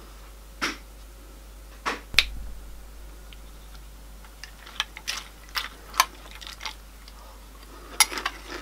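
A metal spoon clinking against a bowl while someone eats: about ten short, sharp clicks, unevenly spaced.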